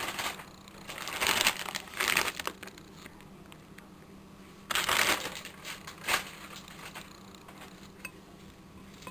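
Plastic packaging crinkling in several short bursts, strongest about a second in and again around five seconds, as shredded cheese is taken out and sprinkled onto a burrito by hand.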